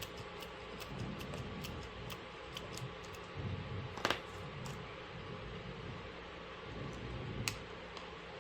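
Small sharp clicks and taps of tools and parts being handled while fitting components inside an iPhone 11 Pro, with a louder click about four seconds in and another near the end, over a steady low hum.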